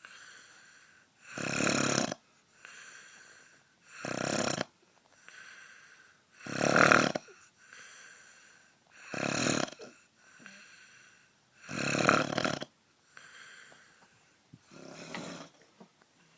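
A sleeping man snoring loudly and regularly: six heavy snores about every two and a half seconds, each lasting under a second, with quieter breaths between them; the last one, near the end, is weaker.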